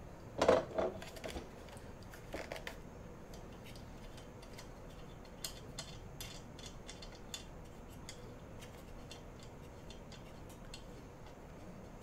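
Monitor stand parts being handled and fitted together: a knock about half a second in, a few more knocks soon after, then scattered light clicks and taps.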